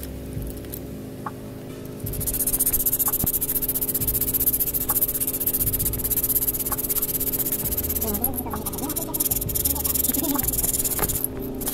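Sandpaper rubbed rapidly back and forth across the friction face of a motorcycle disc brake pad, roughening the pad surface. It makes a steady scratchy hiss that starts about two seconds in and stops shortly before the end.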